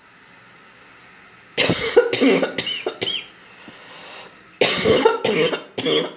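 A person coughing in two fits of several harsh coughs each, the first about a second and a half in and the second about four and a half seconds in; she has a cough from a cold.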